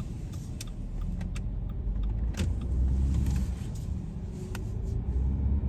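Low, steady rumble of a car running, with a few sharp clicks over it.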